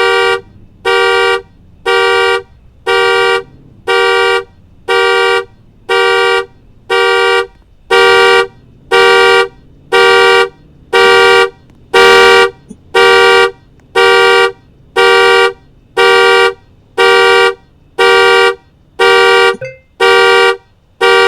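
Car alarm going off through the car's own horn: a two-note horn honking in a steady rhythm of about one half-second blast per second, a little louder from about eight seconds in.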